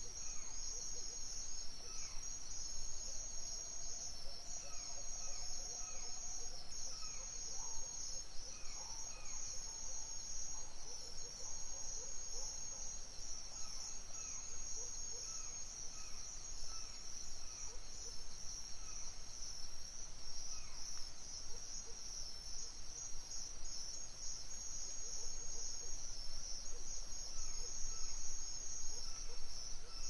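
A steady, high-pitched chorus of crickets trilling without a break, with short bird chirps repeating at intervals throughout.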